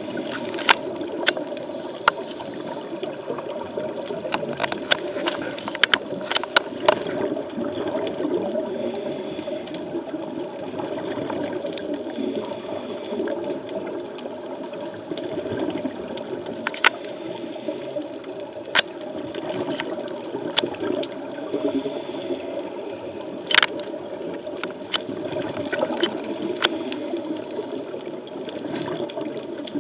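Underwater sound of scuba divers breathing through their regulators: a steady bubbling rush, a short hiss every four to five seconds, and scattered sharp clicks.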